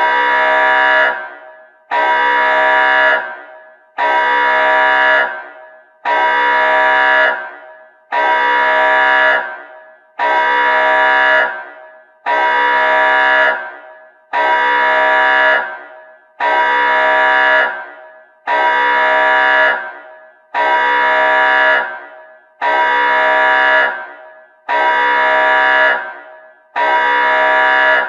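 Nuclear alarm sound effect: a loud horn-like blast at a steady pitch, repeating about every two seconds. Each blast starts abruptly, holds for a little over a second and fades out in a short echo.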